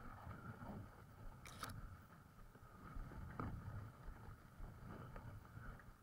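Faint wind rumble on the microphone with water sloshing, broken by a few short sharp noises, the first about a second and a half in.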